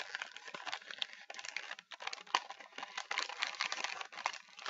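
Crinkling and crackling of a seaweed snack package being opened and handled by hand: a dense run of quick, irregular crackles with a brief pause a little under two seconds in.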